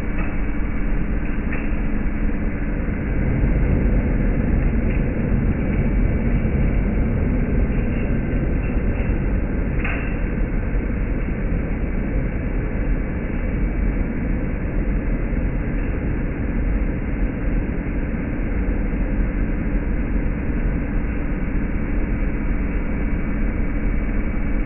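Early-1970s Hoover Custom Convertible U4007 upright vacuum running steadily, a constant motor drone with a steady whine. A brief click about ten seconds in.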